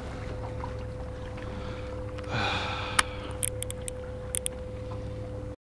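Steady hum and whine of a Minn Kota electric trolling motor running, with a breathy exhale about two seconds in and a few sharp clicks of gear being handled around three to four seconds. The sound drops out briefly at the very end.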